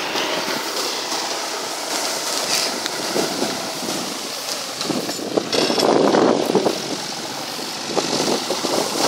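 Farm tractor running as it pulls a plough through rice stubble, with straw and clods scraping and rustling against the plough, louder for about a second around the middle.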